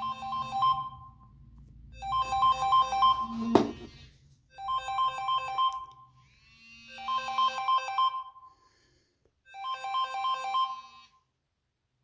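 Samsung Galaxy A20e alarm ringing: a melodic electronic alarm tune repeated in five short phrases, with one sharp knock about three and a half seconds in. It stops about eleven seconds in as the alarm is dismissed.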